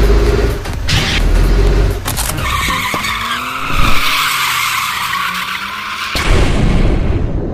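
Electronic background music with a heavy low beat. About two seconds in, a loud hissing sweep with gliding tones beneath it takes over and cuts off suddenly about six seconds in, after which the music fades out.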